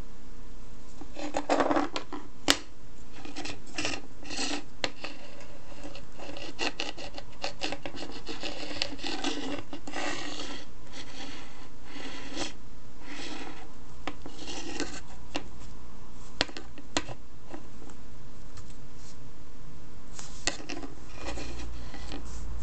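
A 2.5-inch laptop hard drive handled with a rubber-gloved hand on a wooden desk: an irregular run of scratchy rubbing and scraping noises, with a sharp click about two and a half seconds in.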